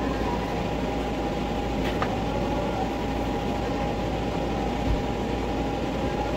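A steady mechanical hum with a constant mid-pitched whine running under it. There is a light click about two seconds in and a soft bump about five seconds in.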